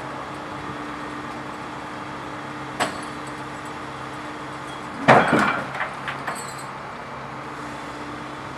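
Heavy engine running steadily from the crane truck, with a single sharp metallic clank about three seconds in and a louder burst of clanking and rattling about five seconds in, from the lifting gear and the excavator being handled.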